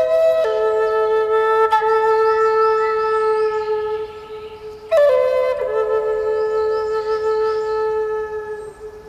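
Grass-blade whistle: a blade of grass stretched between the thumbs and blown, sounding two long held notes. Each note starts a little higher, drops slightly and holds steady for about four seconds; the second begins about five seconds in.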